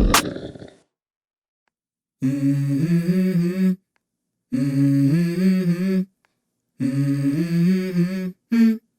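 Background music: one track fades out, then after a short silence a hummed vocal melody comes in as three short phrases with brief gaps, opening the next song.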